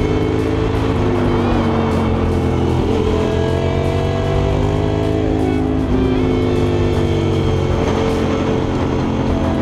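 KTM 990 SMR's V-twin engine running under way, its revs rising and falling through the curves, mixed with rock background music.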